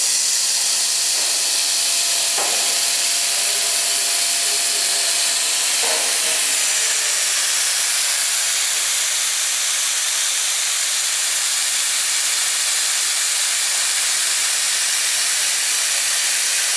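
Steady high hiss of air at a double-head laser cutting machine, with faint clicks about two and a half and six seconds in.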